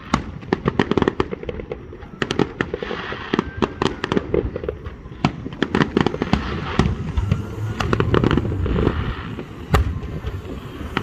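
Aerial fireworks going off in quick succession: many sharp bangs and crackles over a continuous rumble, with the loudest bang near the end.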